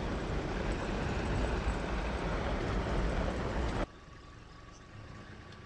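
Safari vehicle driving on a dirt track: a loud, even rumble of engine, tyres and wind. It cuts off abruptly about four seconds in, leaving a faint low hum.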